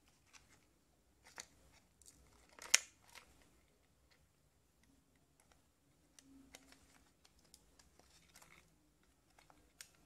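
Plastic parts of a Bluetooth speaker's housing and its control board being handled and pressed into place, giving scattered small clicks and knocks, with one sharper click a little under three seconds in.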